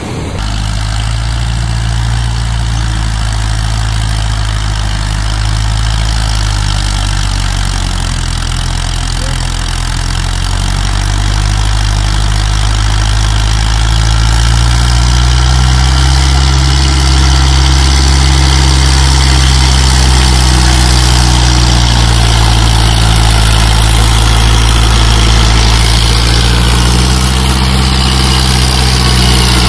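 ACE DI-350 tractor's diesel engine running steadily while it works through mud. It grows louder and a little higher in pitch about halfway through, then holds there.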